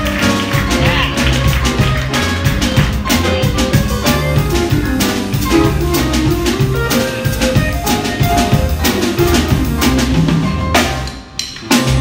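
Live trio of upright double bass, drum kit and electric guitar playing an instrumental number, with the drums prominent. Near the end the band drops out for a moment, then comes back in on a sharp drum hit.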